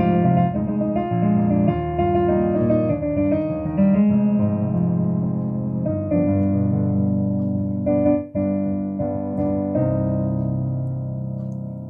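Piano playing a run of chords, with a short break about eight seconds in, then ending on a long held chord that slowly fades.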